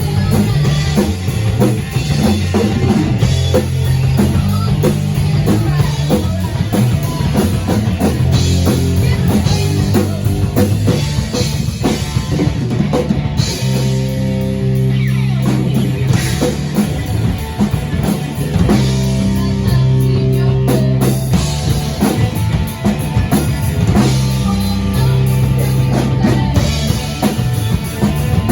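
Instrumental rock music: a drum kit keeping a steady beat under guitar and a low bass line that moves in steps, with no singing.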